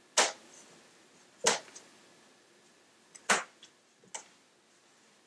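Amiga 1000's built-in 3.5-inch floppy drive clicking as its head steps while Workbench reads from the disk: four sharp, irregularly spaced clicks, the last one smaller.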